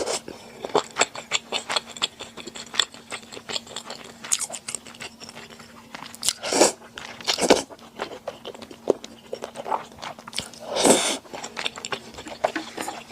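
Close-miked mouth sounds of eating: a dense run of quick, wet chewing clicks, with three louder bites or slurps about six and a half, seven and a half and eleven seconds in. A faint steady hum runs underneath.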